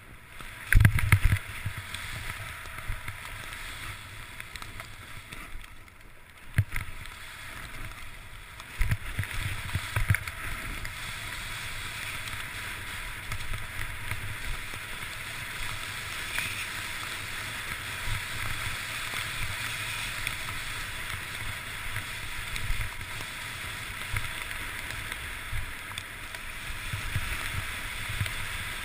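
Continuous rushing hiss of skis or a snowboard sliding fast through powder snow, with low rumbles and a few sharp thumps, the loudest about a second in.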